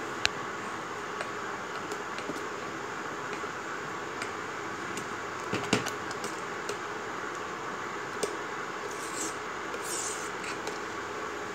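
A metal spoon stirring thick kheer in a steel pot, with three sharp clinks of the spoon against the pot, the loudest a little past the middle, over a steady fan noise.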